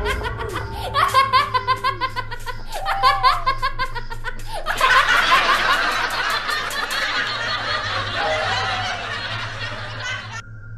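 Laughter: a quick, pulsing run of laughs for the first few seconds, then a thicker, layered stretch of laughing that stops abruptly near the end, over a low steady hum.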